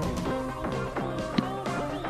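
Upbeat guitar-driven background music with a steady beat, and one brief sharp click about a second and a half in.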